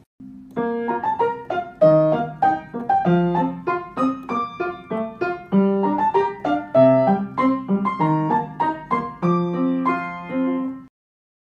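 Background piano music: a light melody of single struck notes over a lower accompaniment, which stops about half a second before the end.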